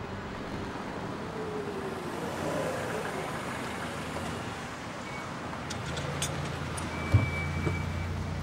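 Street traffic, with a car pulling up and its engine idling as a low steady hum. There are a few sharp ticks and a single thump near the end.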